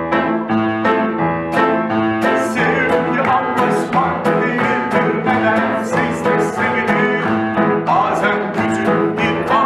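Instrumental passage of a song played live on an upright piano and an acoustic guitar, with many quick notes struck throughout.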